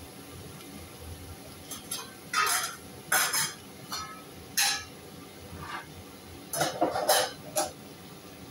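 Short clatters and clinks of kitchen pots, lid and utensils being handled, several separate knocks with a quick cluster near the end, over a faint steady sizzle of hot dog slices and onion frying in the pot.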